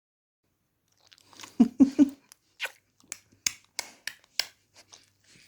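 A German shepherd sniffing and licking right up at the microphone. About a second and a half in come three loud low snorts close together, then a run of short wet sniffs and licks, about three a second.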